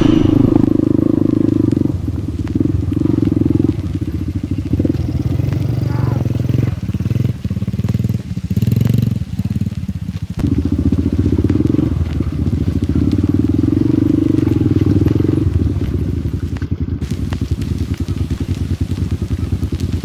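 Small single-cylinder dirt bike engine running at low revs on a rough trail, swelling and easing off several times, with a quieter stretch about halfway through.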